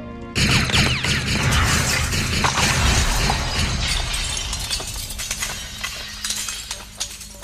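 Film sound effect of a frozen creature being blown apart: a sudden loud blast about half a second in, then several seconds of shattering, crackling debris over a low rumble, slowly dying away.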